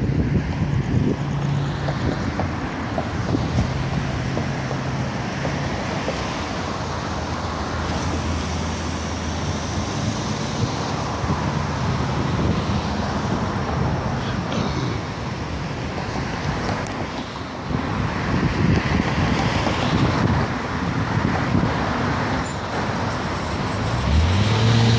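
Road traffic on a city street: a steady wash of passing cars and trucks, with the low hum of engines rising and fading as vehicles go by.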